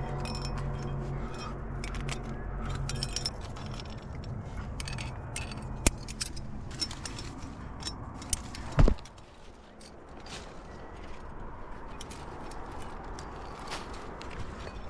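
Metal climbing gear clinking and clicking: carabiners and cams on the harness rack jangle while a cam is placed in the crack and the rope is clipped into a quickdraw. One loud knock comes about nine seconds in.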